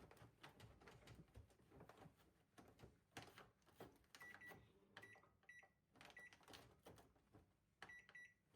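Faint clicks and handling knocks, with short electronic beeps from an appliance's buttons being pressed: several single beeps about halfway through and a longer beep near the end.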